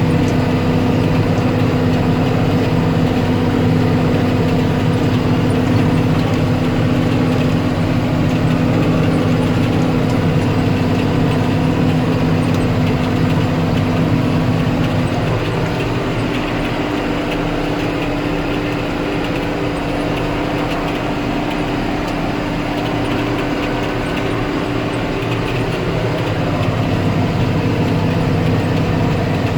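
John Deere 6930P tractor's six-cylinder diesel engine running steadily, pulling a plough. About halfway through, the engine note shifts and the sound eases a little, then grows louder again near the end.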